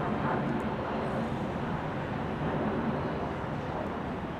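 Motorboat passing at cruising speed: a steady engine rumble mixed with the wash of its bow wave and wake.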